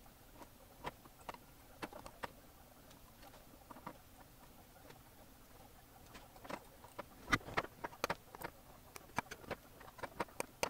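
Irregular sharp clicks and taps from a circuit board and soldering tools being handled on a workbench during hand soldering. A few taps come in the first half, and they grow thicker over the second half.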